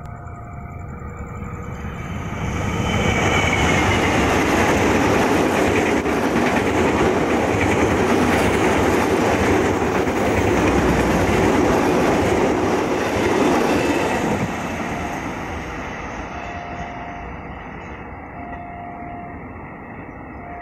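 Gaya Baru Malam Selatan passenger train, hauled by a diesel locomotive, passing close by: the rumble and clickety-clack of its wheels on the rails swell over the first few seconds, stay loud for about ten seconds, then fade as the coaches pull away. A level-crossing warning bell rings alternating two-note chimes, heard plainly near the end as the train noise dies down.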